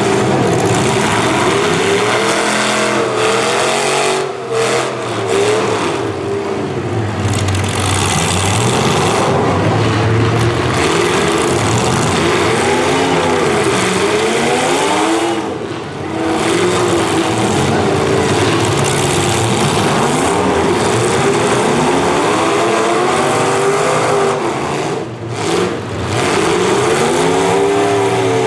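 Several demolition derby cars' V8 engines revving at once, their pitch climbing and falling as they are pushed hard, with brief lulls a few times.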